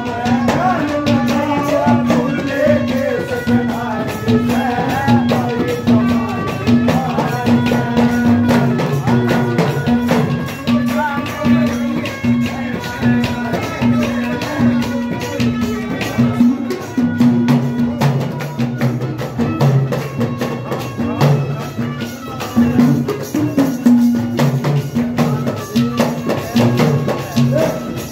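Instrumental folk bhajan music: an Indian banjo plays the melody over a steady beat of deru drum and clay-pot (ghada) percussion.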